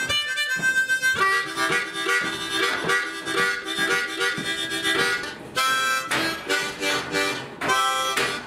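Blues harmonica played cupped in both hands: rhythmic chords and held notes, with short breaks twice in the second half.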